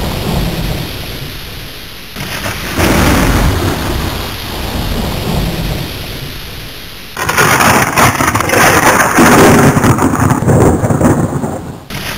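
Thunderstorm sound effect: steady rain with rolling thunder. It swells a few seconds in, and a loud thunderclap breaks about seven seconds in and rumbles on for several seconds before dying away near the end.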